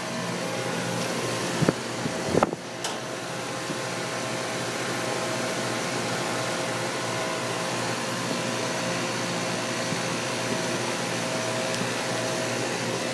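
Outdoor central air-conditioner condensing unit running steadily: the condenser fan's rush over a steady compressor hum. A couple of short knocks about two seconds in.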